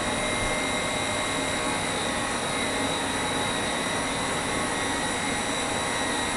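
Large treated-water pumps running steadily: an even machine noise with a faint constant high whine.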